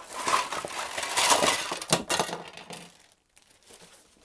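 A plastic carrier bag rustling as it is emptied while a load of plastic Trackmaster toy train track pieces tumbles out, clattering onto each other in a heap. The clatter dies away after about three seconds, leaving a few small knocks as the pile settles.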